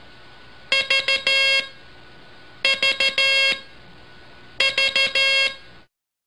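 Morse code sent as a buzzy beeping tone: three identical groups about two seconds apart, each a few short dits and then one longer dah, over a faint steady hiss.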